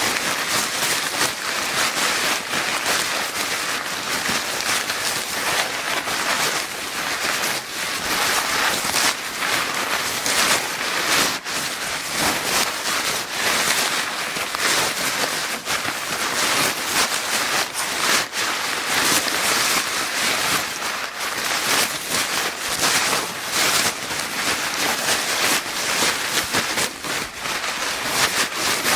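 Paper bag crinkling and rustling without a break, a dense mass of quick irregular crackles.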